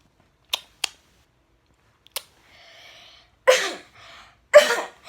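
A person with a bad cough coughing twice, about a second apart, loud and harsh, after a short breath in; a few small clicks come before.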